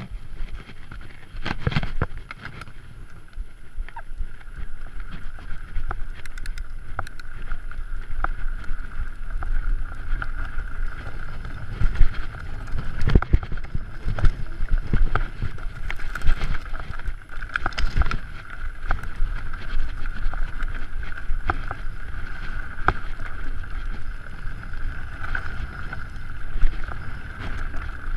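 Mountain bike ridden fast over a bumpy dirt trail: wind buffets the camera microphone, the tyres rumble, and the bike knocks and rattles over bumps, with a steady mid-pitched whir underneath.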